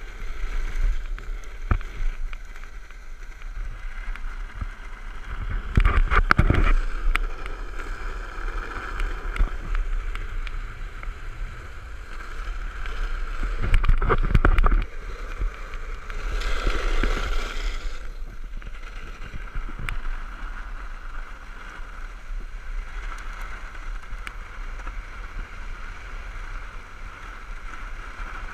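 Downhill longboard's wheels rolling fast over rough, cracked asphalt, a steady rumble with wind rush, swelling into several louder bursts of rumble.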